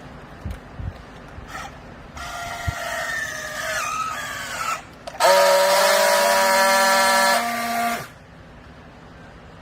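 Hydraulic baler under load: a pitched whine that wavers and slides downward, then a loud steady horn-like tone for about three seconds that cuts off suddenly. A couple of knocks come before it.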